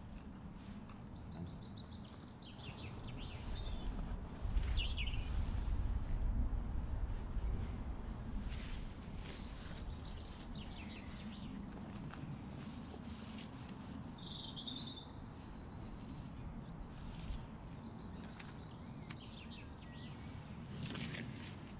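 Outdoor ambience of birds chirping and twittering in short repeated phrases over a low rumble. The rumble swells about four seconds in and eases off over the next few seconds.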